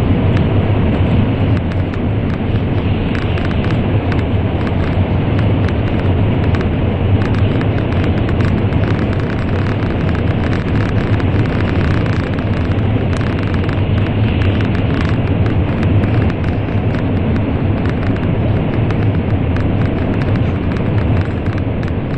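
Cabin noise of an N700 series Shinkansen running at speed through a tunnel: a steady, loud, deep rumble and rush with scattered faint clicks.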